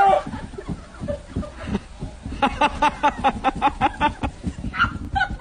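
A person laughing in a quick run of short, rhythmic bursts.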